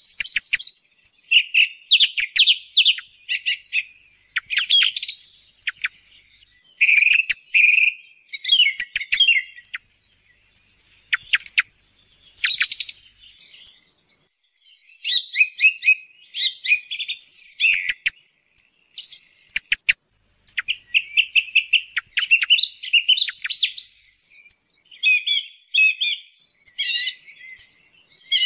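Song thrush singing: a string of short whistled and chirping phrases, many made of one note repeated several times, with brief pauses between phrases.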